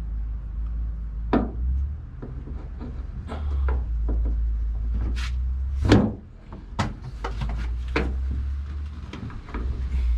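Scattered clicks and knocks of a gas-charged hood lift support being handled and fitted onto its mounts, the loudest knock about six seconds in, over a steady low rumble.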